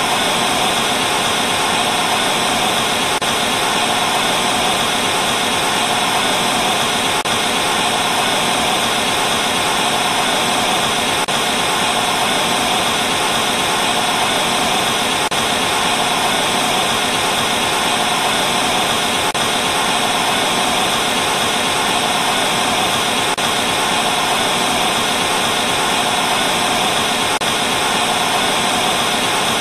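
Television static hiss from a set with no signal: a steady, unbroken noise with its brightest part in the treble.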